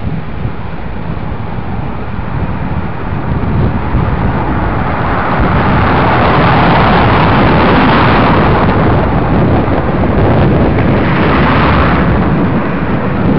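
Inline skate wheels rolling on tarmac, with wind buffeting the microphone. Road traffic swells up twice as cars pass, around the middle and again near the end.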